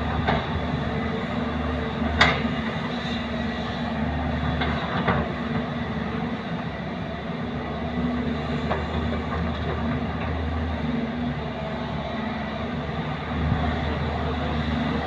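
JCB tracked excavator's diesel engine running steadily as the machine digs and swings, a low drone with a few sharp knocks, the loudest about two seconds in.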